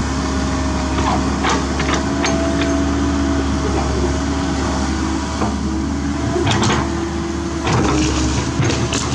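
Komatsu PC130 excavator's diesel engine running steadily under load with a steady high whine, as the arm swings and the bucket digs and dumps soil; several sharp knocks and rattles from the bucket and roots about a second in, and again near two-thirds through and near the end.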